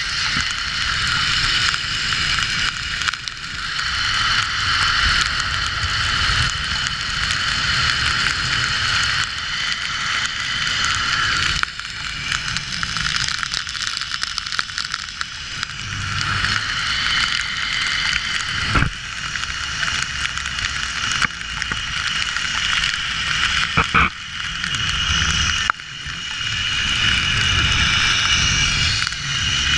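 Zip line trolley pulleys running along the steel cable, a steady whirring with several high tones, over wind rumble on the camera microphone during the descent. Two sharp knocks come about two-thirds of the way through.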